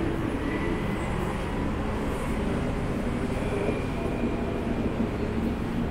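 Steady low rumble of city motor traffic.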